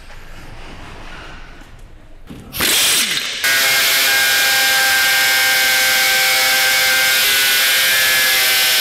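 Metabo angle grinder cutting into the steel shell of a removed exhaust filter canister. It starts with a short burst about two and a half seconds in, then settles into a steady, loud whine and hiss as the disc bites into the metal.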